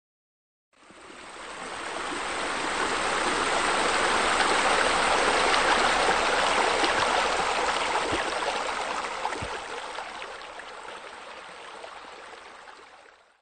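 Running water, a steady rushing splash. It fades in over the first couple of seconds, is loudest around the middle, and fades away near the end.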